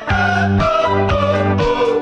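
Background music: a song with a steady bass line, a melody on top and a beat about twice a second.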